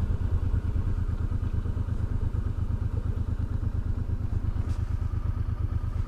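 Honda Deauville's V-twin engine running steadily, a rapid, even pulsing beat.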